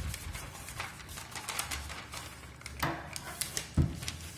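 Pages of a paper notebook being turned over: irregular paper rustles and clicks, with a few low knocks, the loudest near the end.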